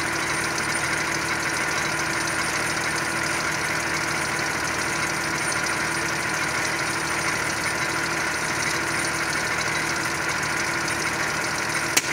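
Tractor engine idling steadily while its compressor pushes air through a hose into a rubber balloon, with a steady hiss of air. Near the end the overinflated balloon bursts with one sharp bang.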